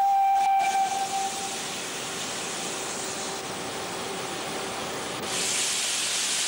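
Steam locomotive whistle sounding one steady note, loud for about a second and then fainter for several seconds. About five seconds in, a steady hiss of escaping steam rises and carries on.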